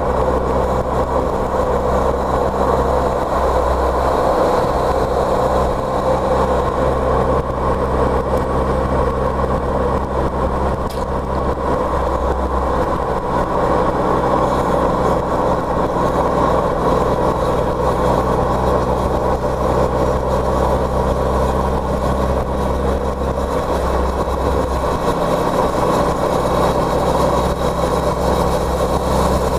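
Car engine running at a steady speed under a constant rush of road noise, from a car driving along.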